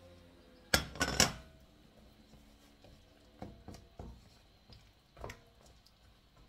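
Kitchen clatter at a large stainless steel wok: a burst of about three sharp, loud clanks about a second in, then a few lighter knocks as a wooden spoon stirs the stew in the pan.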